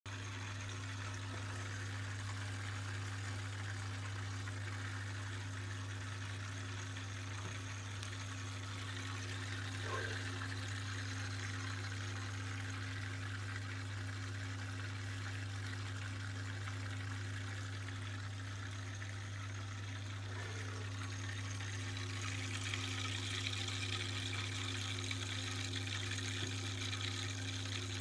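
Wilo Star-RS 25/6 heating circulation pump running with a steady low hum under a rushing, watery hiss, which grows a little stronger near the end. The humming and bubbling are the sign of air trapped in the pump.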